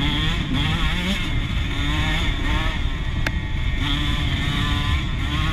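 Dirt bike engine running while riding along a dirt track, its note rising and falling repeatedly as the throttle opens and closes. A single sharp click comes about three seconds in.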